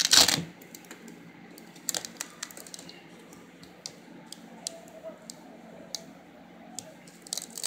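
Hands handling a clear plastic storage bin and the adhesive fastening strips on its rim: a loud brief rustle and knock at the start, then scattered light plastic clicks and taps, with a few more close together near the end.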